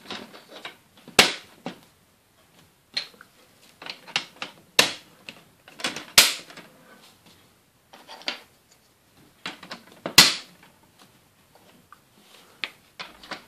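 Hard plastic Playmobil parts clicking and knocking as grey roof pieces are pressed onto the top of the fire-station door frame: a string of sharp snaps and taps, the loudest about a second in, twice around five to six seconds, and about ten seconds in.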